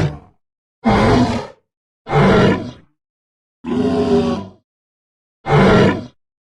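Designed Torosaurus dinosaur call sound effects: a series of short, loud calls, each under a second long with silence between them, about one every one and a half seconds.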